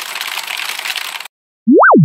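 Cartoon sound effects: a dry, scratchy rustle for about a second and a half, the scuttling of a cartoon insect, which stops abruptly. Near the end comes a quick whistle-like boing that glides up in pitch and then drops low.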